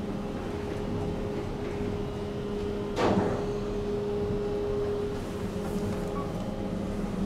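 Kone elevator car running, heard from inside the cab: a steady hum, a sharp knock about three seconds in, then a steady tone that holds for about two seconds before fading back into the hum.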